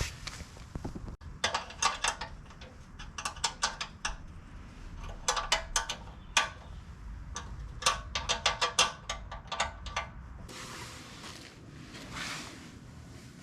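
Metal parts and hand tools clinking and rattling while a wood chipper is being put together: irregular clusters of sharp, ringing clicks, with a soft rustle near the end.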